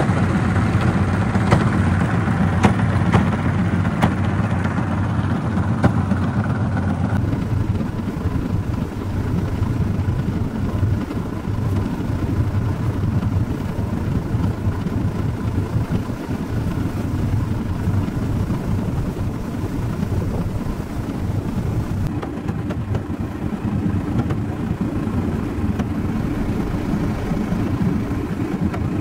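Homemade motorised rail cart rolling along railway tracks: a steady, loud rumble of its small engine and wheels running on the rails, with a few sharp clicks in the first several seconds.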